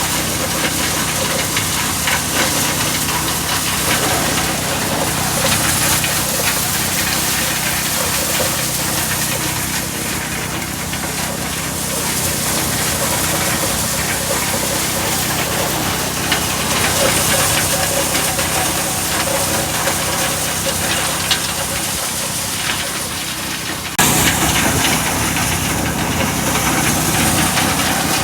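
Engine-driven corn sheller running steadily, its motor droning under a constant rushing hiss as the ears go through the machine. The sound jumps abruptly louder about 24 seconds in.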